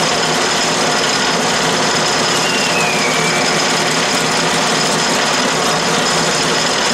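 A 12-inch Atlas/Craftsman metal lathe running steadily with a high whine from its motor and drive, while a boring bar cuts into an aluminium slug to bore an internal taper. A brief falling squeal comes about two and a half seconds in.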